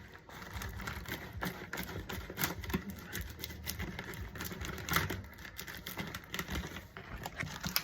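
Irregular light clicks and rattles of a flexible dryer vent duct being handled and worked onto the wall vent's fitting.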